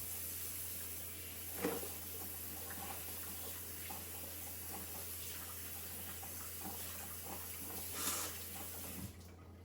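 Steady running water with a low hum underneath, starting and stopping abruptly, with two brief knocks, one near two seconds in and one near the end.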